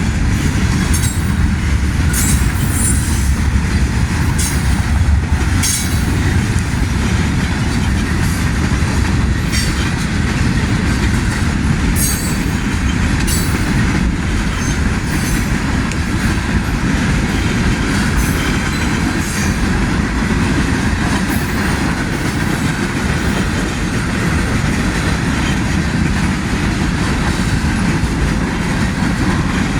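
Manifest freight train rolling slowly past: a steady rumble of wheels on rail, with short high squeals and clicks from the wheels every second or two.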